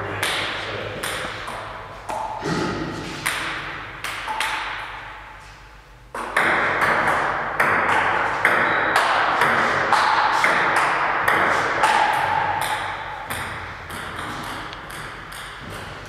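Table tennis ball clicking back and forth between rubber paddles and the table in a training rally, about two to three hits a second, each with a short echo. The hitting thins out for a moment around four to six seconds in, then picks up again.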